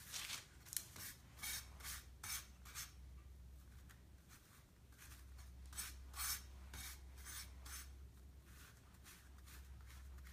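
Mixing knife scraping and rubbing fine mineral powder against a sheet of paper in short, quick strokes as the powders are blended. The strokes come in two runs with a short pause between them.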